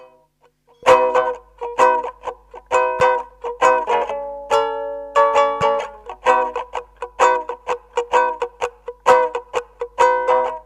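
Plucked string instrument playing rhythmic chords, about two a second, starting about a second in after near silence: the instrumental opening of a song before the singing comes in.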